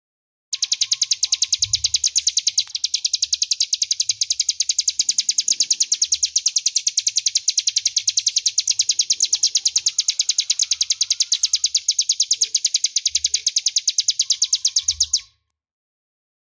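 Ciblek gunung (a prinia) singing one long, rapid rattling trill of evenly repeated high notes, the 'ngebren' song, loud and clear. It stops abruptly about a second before the end.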